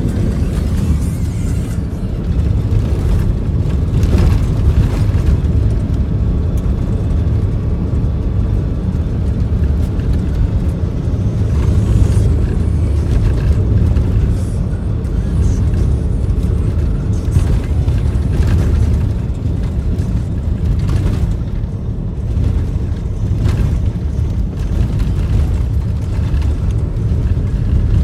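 Steady low rumble of a car driving on a gravel road, heard from inside the cabin, with occasional light ticks.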